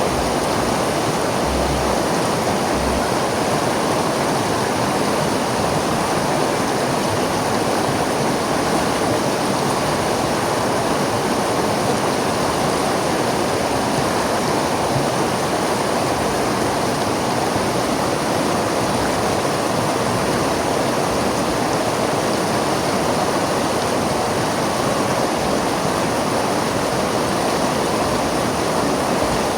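River water flowing steadily over rocks, a continuous even rushing with no breaks.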